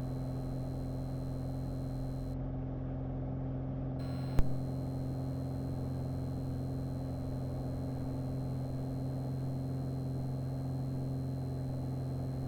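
Piper Arrow's piston engine and propeller heard from the cockpit, a steady drone at takeoff power during the takeoff roll. There is one short click about four and a half seconds in.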